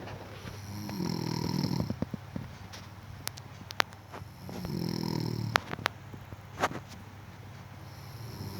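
A sleeping person snoring: two snores of about a second each, some three and a half seconds apart, with a third starting at the very end. Short sharp clicks sound between the snores.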